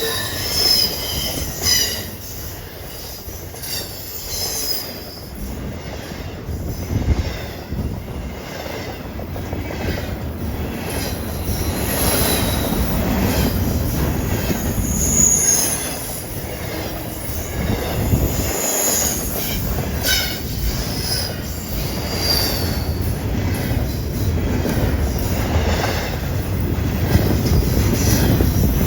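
Intermodal freight train rolling past, a steady rumble with its wheels clattering over rail joints and short high-pitched wheel squeals coming and going.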